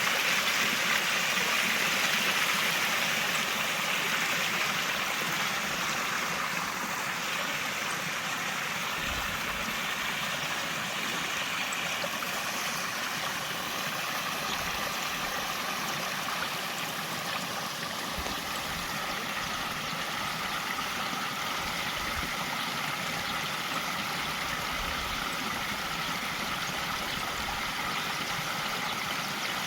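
Water rushing steadily over small cascades: an even, unbroken rush, a little louder in the first few seconds, with faint low bumps now and then.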